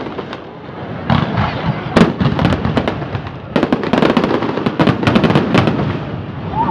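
Fireworks going off: a quick run of sharp bangs and crackling reports over a low rumble, thinning briefly near the start and packing densest from about halfway through.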